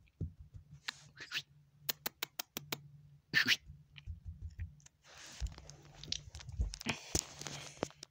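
Handling noise: rubbing and scraping, with a quick run of about six sharp clicks some two seconds in and a longer stretch of rubbing in the second half.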